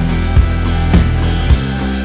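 Background music with a steady drum beat, about two beats a second, over sustained guitar and bass notes.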